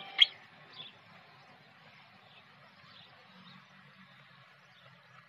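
Faint outdoor background noise with a few faint high chirps, opened by one brief, sharp, high click just after the start and a softer one just under a second in.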